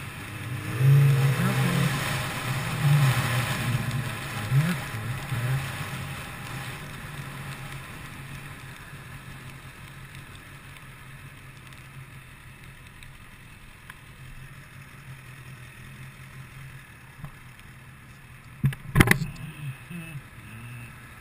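Kawasaki ZX10R inline-four sport bike running on the road, engine mixed with wind noise on a helmet-mounted microphone. It is louder and rising in pitch over the first few seconds, then settles to a lower steady run as the bike slows. A single sharp knock comes near the end.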